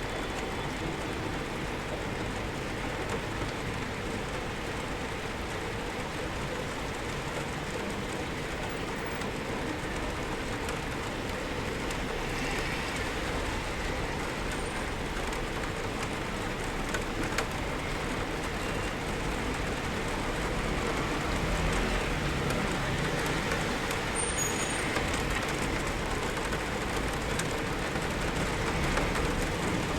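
Steady rainfall heard from indoors: a continuous, even hiss with a low rumble underneath, growing slightly louder in the second half.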